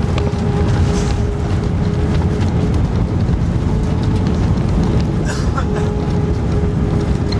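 Cabin noise of a British Airways Airbus A319 rolling along the runway after touchdown: a loud, steady rumble of engines and wheels with a steady hum.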